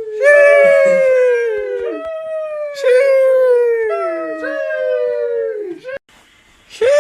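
Drawn-out, high-pitched "sheeeesh" exclamations, one after another and partly overlapping. Each opens with a hiss and slides slowly down in pitch before breaking off, and there is a brief gap near the end.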